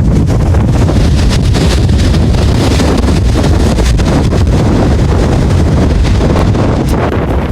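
Coastal wind buffeting the camera microphone: a loud, steady, low rumble that masks any surf.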